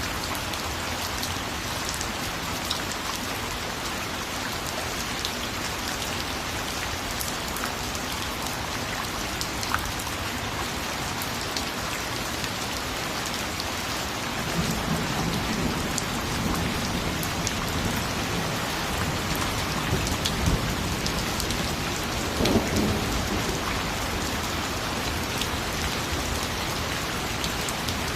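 Steady rain falling, with scattered sharp drop ticks. About halfway through, a low rumble of thunder rolls in and swells once more later on.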